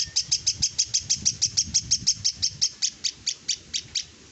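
Caged starling (jalak) calling in a fast, even run of short, sharp, high notes, about five a second, slowing and fading over the last second.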